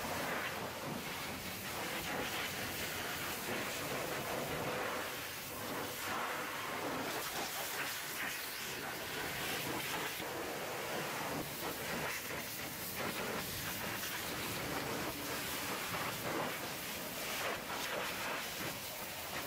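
High-pressure washer jet spraying water onto the mud-caked steel chassis and wheel arch of a small Isuzu dump truck: a steady rush of spray and splatter on metal, dipping and swelling as the jet moves.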